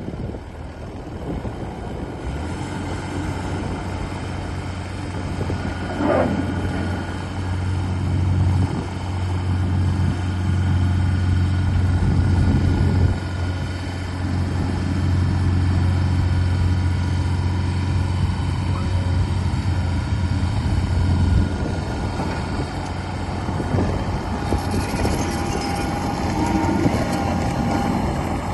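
Takeuchi TL10V2 compact loader's diesel engine starting about two seconds in, then running with a steady low hum. A brief whine rises and falls about six seconds in, and the engine note changes after about twenty seconds.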